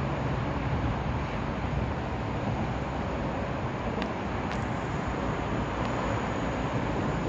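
Passenger train of coaches rolling slowly past: a steady, even rumble of wheels on the rails, with two faint clicks about four seconds in.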